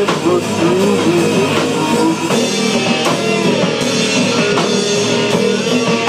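Rock band playing an instrumental passage between sung lines: drums keep a steady beat under a lead melody that bends in pitch.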